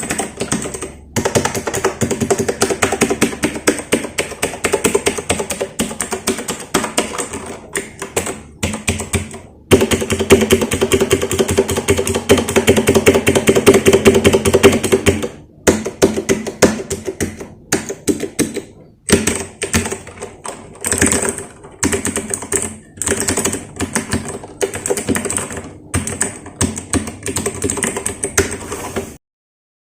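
Typing on a Royal Kludge RK100 mechanical keyboard: rapid runs of key clicks broken by short pauses, loudest for a few seconds around the middle, stopping abruptly near the end.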